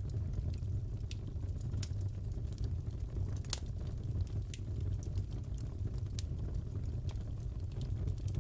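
Fireplace fire crackling: a steady low rumble of burning with scattered sharp pops, the loudest about three and a half seconds in.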